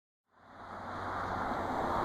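Wind rushing over the microphone of a moving motorcycle, with a steady low engine drone underneath, fading in from silence just after the start.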